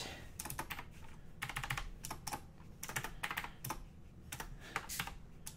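Typing on an old-school mechanical-switch keyboard with round typewriter-style keycaps: quick, irregular runs of clacking keystrokes.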